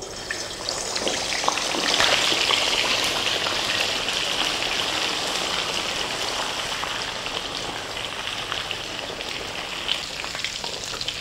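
Hot oil sizzling hard around a steamed beef patty just dropped into a wok for deep-frying. The sizzle swells over the first couple of seconds and then eases off slowly.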